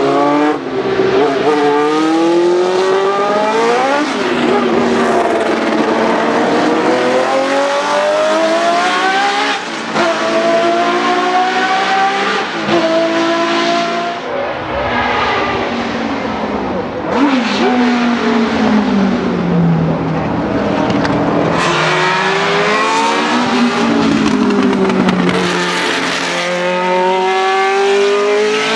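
Historic Formula 1 cars' racing engines at high revs as cars pass one after another. Each engine climbs in pitch and drops back at every upshift, with several engines overlapping at times.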